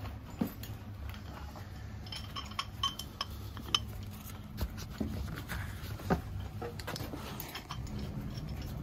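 Scattered light metallic clinks and knocks of tools and parts being handled, with a few short ringing tones, over a steady low hum.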